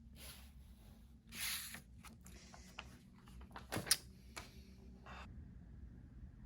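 Handling sounds: bursts of rustling and a run of clicks, the loudest a sharp snap about four seconds in, ending about five seconds in.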